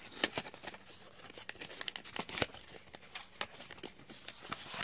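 Packaging being handled and opened: irregular crinkling, rustling and small crackles of paper and plastic wrapping.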